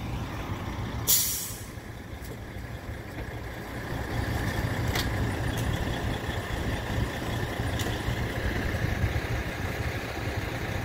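Truck engine running low and steady as it tows a mobile home, with a short, sharp air-brake hiss about a second in; the engine grows a little louder about four seconds in.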